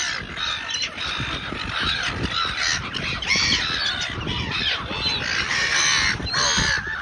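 Silver gulls calling, one loud squawk after another with short gaps.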